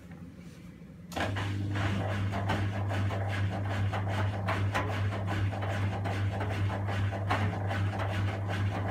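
Miele front-loading washing machine's drum motor starting up about a second in, then a steady low hum with laundry tumbling and thudding in the turning drum, as the machine makes a second attempt to even out an off-balance load before spinning.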